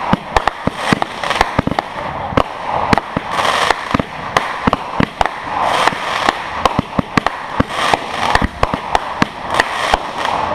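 Aerial fireworks bursting overhead in quick succession: several sharp bangs a second over a continuous crackle of sparks.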